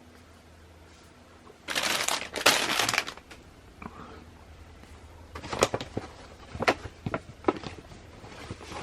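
Packaging being handled and opened: a burst of rustling about two seconds in, lasting about a second, then several sharp crinkles and snaps.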